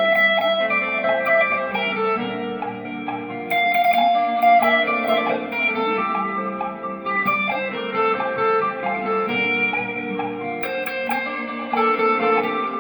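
Guitar playing a gospel melody in quick plucked notes over steady held backing chords.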